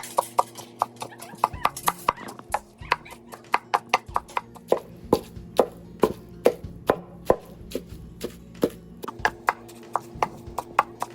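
Knife chopping on a cutting board: quick, even knocks about four a second, each with a short woody ring, spacing out for a few seconds after the middle before picking up again.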